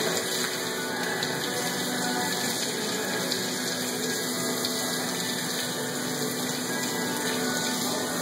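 Garden hose running steadily, its water spraying onto a wet mastiff's coat and splashing on a concrete floor.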